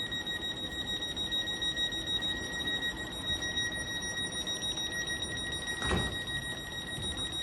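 Train door-closing warning alarm sounding as one continuous high electronic tone with a faint rapid flutter, signalling that the doors are about to shut before departure. A single thump about six seconds in.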